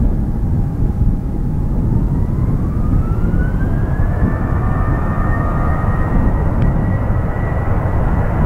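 Boeing 737-800's CFM56-7B turbofan engines spooling up for the takeoff roll, a deep rumble under a whine that rises in pitch over a couple of seconds and then holds steady.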